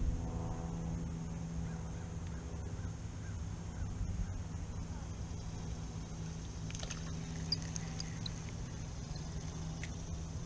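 A small panfish splashing at the surface as it is reeled in and lifted out of the pond, with sharp splashes about seven to eight seconds in. Under it runs a steady low wind rumble on the microphone and a high steady hiss, and a short pitched call sounds near the start.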